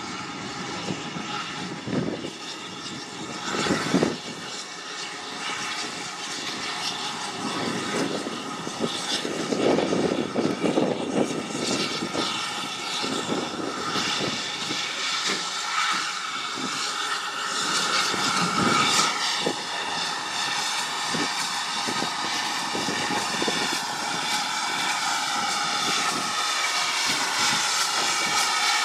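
GWR Large Prairie 2-6-2T steam tank engine working slowly forward, its open cylinder drain cocks hissing steam over irregular chuffs of exhaust, growing louder as it approaches.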